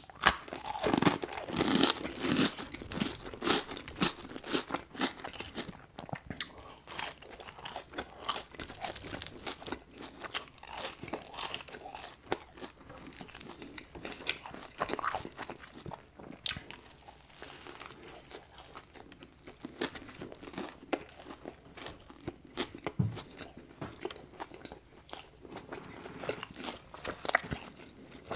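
Close-miked chewing and crunching of a crispy fried chicken sandwich and french fries: many small, irregular crunches, busiest in the first few seconds.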